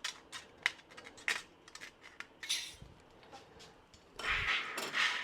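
Thin metal shim stock being cut by hand: a series of sharp separate snips, then a longer spell of rustling and handling noise with a dull knock from about four seconds in.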